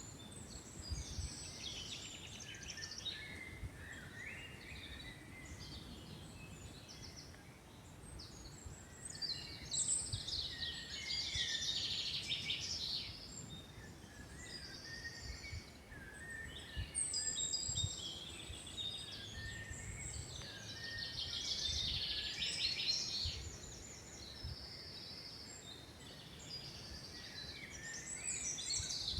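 Several small songbirds singing and chirping, overlapping high, quick trilled phrases. Their song thickens twice, around a third of the way in and again past the middle, over a faint low background rumble.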